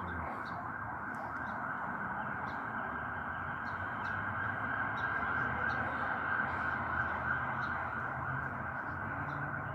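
Steady rushing of a river flowing, an even hiss that holds without change, with faint short high chirps over it.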